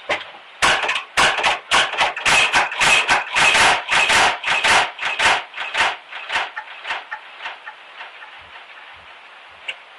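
A rapid, irregular series of harsh clicks and crackling noise bursts. It starts about half a second in, is densest for the next five seconds, then thins to scattered ticks.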